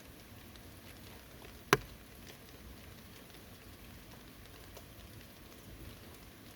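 Steady light rain falling, with faint scattered drop ticks. About two seconds in comes a single sharp, loud tap, much louder than the rain.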